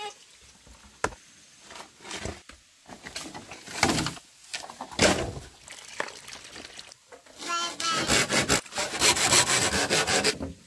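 Wooden boards knocking and scraping, then a long run of rapid cutting strokes: a blade working through bamboo.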